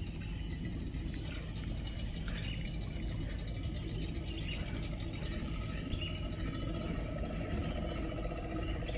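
Steady low rumbling outdoor background noise, with a few faint high chirps now and then.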